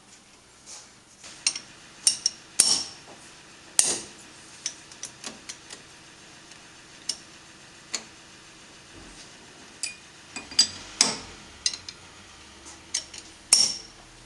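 Sharp metallic clicks and clinks of a steel 1/2-inch square socket drive engaging and turning the camlocks that hold a lathe chuck on its spindle nose. The clicks come at irregular intervals, and the loudest ones ring briefly.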